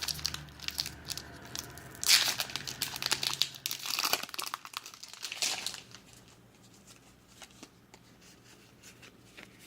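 Foil Pokémon booster pack being torn open and its wrapper crinkled, with loud tearing rushes about two seconds and four seconds in. Quieter scattered clicks and rustles follow near the end.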